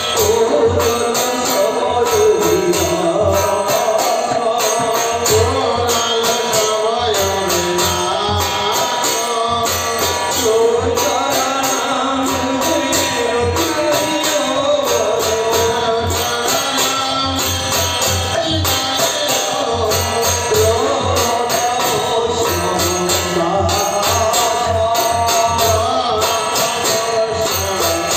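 Devotional kirtan music: a voice singing a wavering melody over a steady beat of jingling metal percussion and drum.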